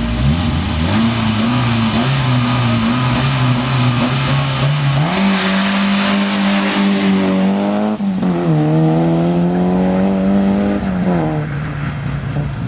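Peugeot 205 rally car's four-cylinder engine running hard: revs climb about five seconds in, break briefly near eight seconds as it shifts gear, climb again, and drop near the end.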